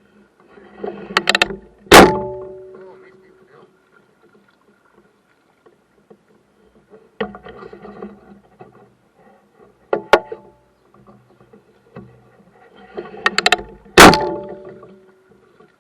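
Sharp knocks against a boat, each ringing briefly. Two loud ones come about twelve seconds apart, with lighter clicks and rattles between.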